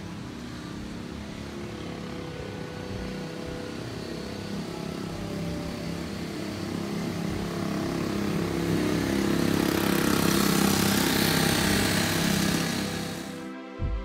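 An engine running and growing steadily louder, with rising hiss. It cuts off suddenly near the end and music begins.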